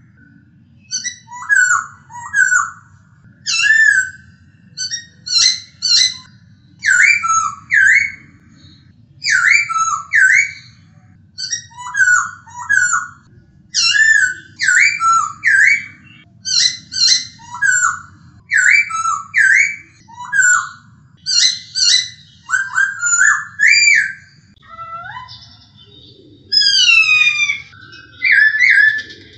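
Black-throated laughingthrush (poksay Hongkong) singing clear whistled phrases of two or three slurred notes, about one phrase a second. Near the end it switches to a run of falling slurred notes. A faint low hum lies beneath.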